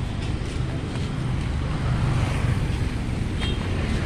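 Outdoor street noise: a low, uneven rumble of wind buffeting a handheld phone's microphone, mixed with background traffic.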